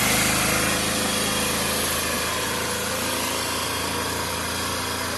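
A small vehicle engine running steadily as it drives through floodwater, over a constant rushing hiss of water churned up on the flooded road; the engine tone fades a little.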